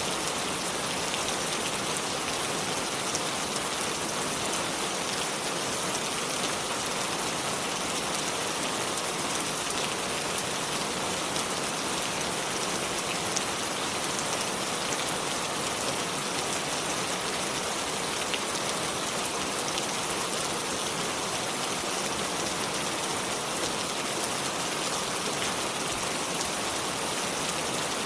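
River water flowing over stones: a steady, even rush with many fine splashes and no change in level.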